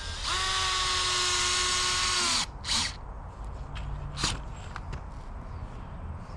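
Power drill driving a screw into a wooden board, a steady whir for about two seconds that cuts off sharply. Two brief sharp noises follow.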